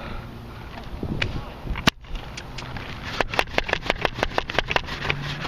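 Sharp mechanical clicks and snaps of Nerf blasters: one crack about two seconds in, then from about three seconds a fast run of clicks, several a second.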